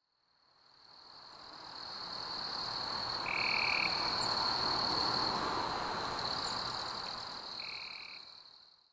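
Frog and insect ambience: a steady high-pitched insect drone over a hiss of night chorus, with a short, clear call standing out twice, about four seconds apart. It fades in at the start and fades out at the end.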